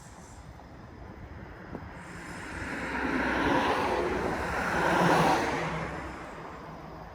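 A car passing on the road alongside: its tyre and road noise swells for a few seconds, peaks twice, then fades away.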